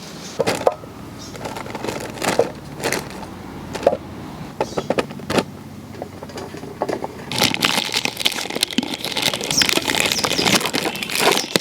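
Irregular sharp knocks and clicks. Then, from about seven seconds in, a dense continuous crinkling of plastic zip-lock bags being handled.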